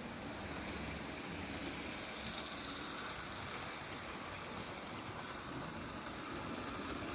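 Hornby model locomotives with ringfield motors running on the layout track: a steady whirr and hiss of motors and wheels on rails.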